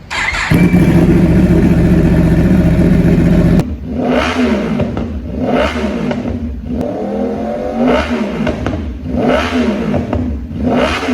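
2021 Yamaha R1's crossplane inline-four through an SC Project exhaust, held loud and steady at high revs for about three seconds. It then drops suddenly and is blipped up and back down about five times.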